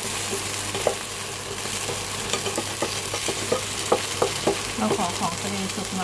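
Oyster omelette batter with shrimp and egg sizzling in oil in a nonstick frying pan, with a spatula scraping and knocking against the pan at irregular intervals. A few brief pitched sounds come in around five seconds in.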